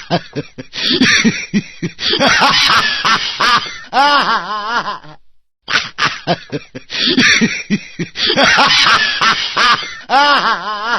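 A comic 'hi-hi-hi, ha-haaa' laughing ringtone: a run of quick giggles builds into a long, wavering 'haaa'. It stops about five seconds in, then the same laugh plays again.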